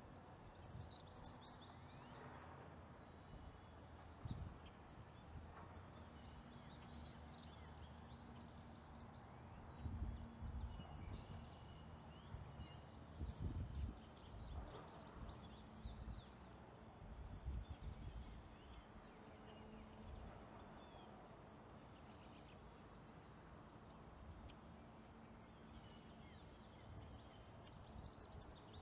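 Faint outdoor field recording of birds: scattered short, high chirps and calls over a low rumble that swells a few times.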